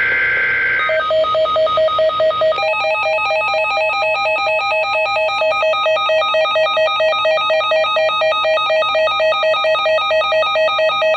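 Emergency Alert System tones for a NOAA Weather Radio special marine warning: a short steady two-tone data burst, then rapid electronic alert beeping, about four beeps a second. About two and a half seconds in, the beeping thickens into a denser multi-tone pattern.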